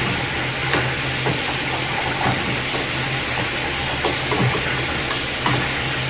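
Food sizzling in a cooking pan: a steady hiss over a low steady hum, with scattered light clicks of a utensil stirring against the pan.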